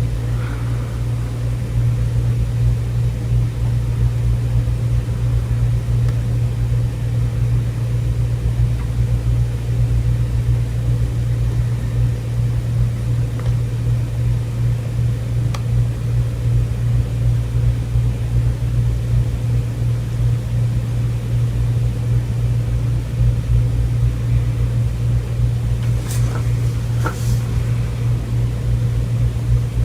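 Steady low rumble and hum, with two brief sharp sounds near the end.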